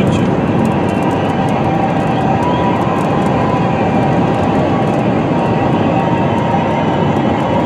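Steady road and wind noise inside a car cabin at highway speed, tyres running on wet pavement, with scattered light ticks.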